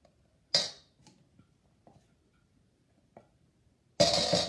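Spoon and spatula scraping whipped topping from a glass measuring cup into a stainless steel mixing bowl: a sharp scrape about half a second in, a few light ticks, then a loud, noisy scrape lasting about a second near the end.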